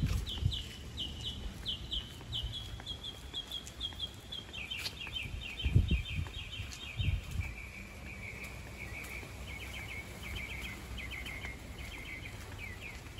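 A bird singing a long run of short, quickly repeated slurred notes, about four seconds in switching to a faster, lower-pitched series that keeps going. A few low thumps sound underneath near the middle.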